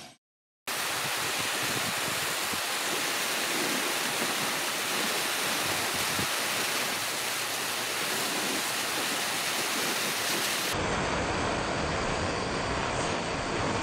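Blowtorch flame hissing steadily as it burns a marshmallow Peep, after a brief moment of silence at the start. About eleven seconds in the sound turns fuller and deeper.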